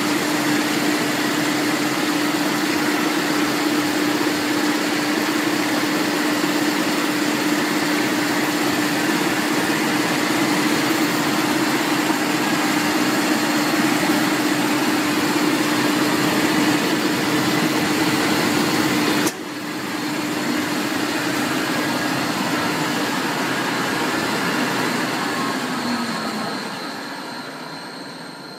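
HDTM-M22 three-strand rope making machine running, a steady mechanical whir with a constant hum. About two-thirds of the way in the sound drops suddenly. Near the end it winds down, falling in pitch and fading.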